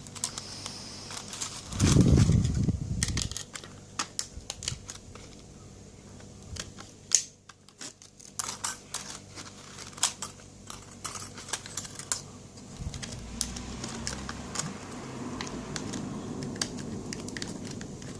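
Lock pick raking the pins of a Duramax 40mm laminated padlock through its plastic packet: an irregular run of small metallic clicks and ticks. A dull bump of handling about two seconds in is the loudest sound.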